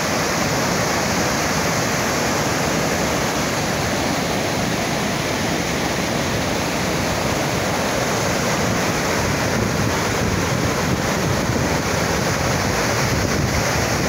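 Large waterfall pouring in wide curtains into a pool, with the water churning at its foot: a loud, steady rush of falling water.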